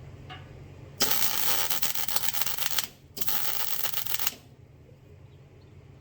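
Arc welding tacks: the crackling sizzle of a welding arc in two bursts, a longer one of about two seconds and a shorter one of about a second after a brief break, over a steady low hum.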